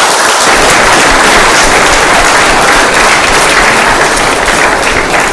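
Audience applauding, a loud, steady clapping.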